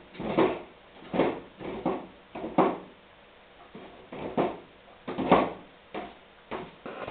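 A dog nosing a plastic food bowl around on a tiled floor: about a dozen irregular scrapes and knocks of plastic on tile.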